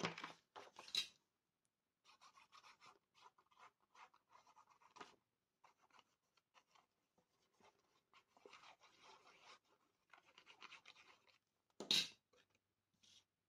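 Quiet paper-craft handling: a few clicks from a corner-rounder punch at the start, then faint scratching as the nozzle of a liquid-glue bottle is drawn along the edges of cardstock. A single sharp snap near the end.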